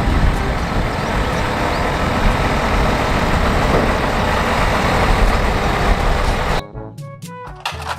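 Dump truck running: a loud, steady noisy rumble that cuts off abruptly about six and a half seconds in, replaced by a melody of clear notes.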